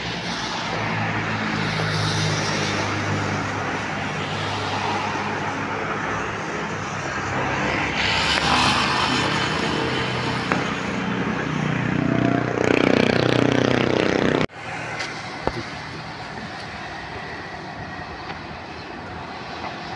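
Street traffic: motor vehicle engines running and passing, with one engine rising in pitch as it revs up about two-thirds of the way through. The sound then cuts off sharply and quieter traffic noise follows.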